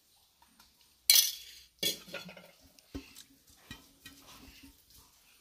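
Stainless-steel spoon and bowls clinking and clattering: a sharp clink about a second in, a second just under a second later, then a few lighter taps.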